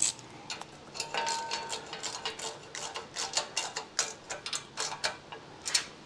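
Irregular light metallic clicks and clinks of hand tools working on motorcycle parts, some in quick little runs.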